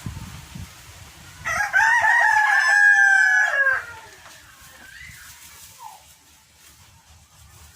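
A rooster crowing once: a single loud crow lasting about two seconds, starting about a second and a half in and dropping in pitch as it trails off.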